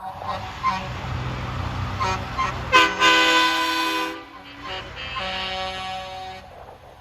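Truck engines rumbling as they pass, with a few short toots, then a loud multi-tone truck air horn blast of over a second about three seconds in, and a second, quieter air horn blast near the end.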